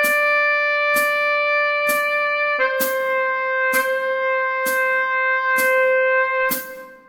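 Tenor saxophone melody holding two long notes, the second a step lower, over a metronome clicking just under once a second; the note fades out near the end.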